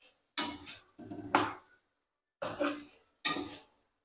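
A metal ladle scraping and stirring chicken and tomatoes around a stainless-steel karahi in four strokes, roughly one a second. This is the bhuna stage, frying down the tomato masala.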